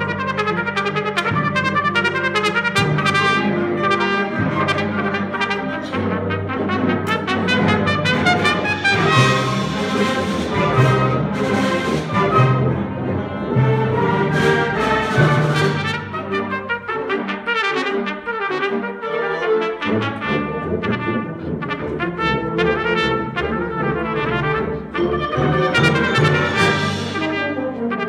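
Student concert band with a trumpet soloist playing a melody over clarinets, saxophones and the rest of the band. The music grows fuller and brighter about a third of the way in, thins out past the middle and builds again near the end.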